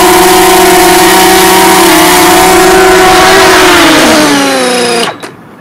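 DJI Mavic Mini drone's propellers whining steadily, then falling in pitch and cutting off about five seconds in as the motors spin down and stop.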